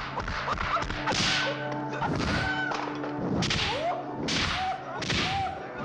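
Film fight sound effects: a run of punch and kick hits with swishes, roughly one a second. Between the hits come short, high-pitched rising-and-falling kiai yells from a martial artist.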